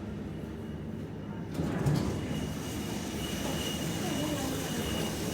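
Low steady rumble of a lift car in motion. About a second and a half in, it gives way suddenly to busy shopping-centre background: a thin steady high tone and faint distant voices.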